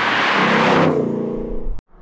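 Ford Mustang Dark Horse's 5.0-litre Coyote V8 exhaust revving hard, then the revs falling away after about a second. The sound cuts off abruptly near the end.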